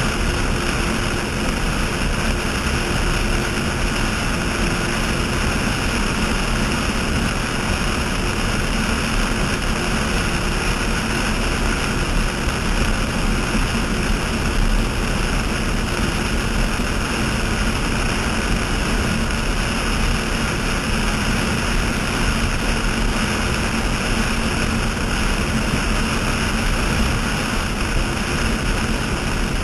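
Offshore racing catamaran running at high speed: a loud, steady roar of engines mixed with wind and rushing spray, without let-up.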